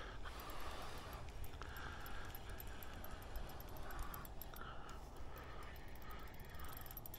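Spinning reel being cranked to wind in a hooked fish: a soft stop-start whirr over a low steady rumble.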